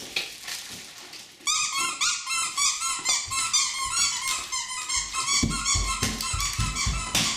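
Rubber squeaky dog toy squeaking rapidly and repeatedly as a husky bites and chews it, starting about a second and a half in. Low rumbling runs underneath in the second half.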